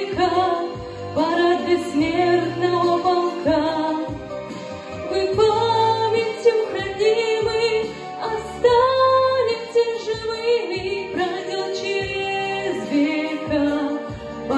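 A woman singing into a microphone with instrumental accompaniment, amplified through the hall's loudspeakers.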